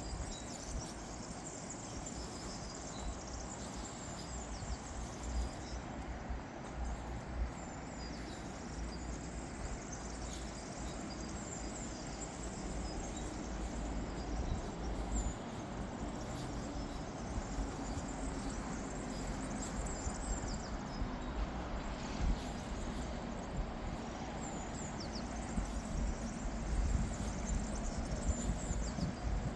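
Scattered high bird chirps over a steady outdoor hiss and a low rumble.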